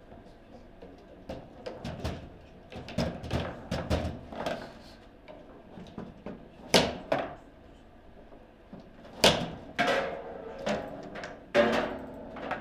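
Table football in play: a run of sharp clacks and knocks as the ball is struck by the figures on the rods and hits the table. The three loudest come about seven, nine and eleven and a half seconds in.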